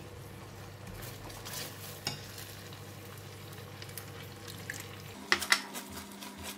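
Silicone spatula stirring and scraping thick Panang curry sauce around a pan, with a low sizzle as the sauce, which is getting dry, fries. Two sharp clicks come near the end.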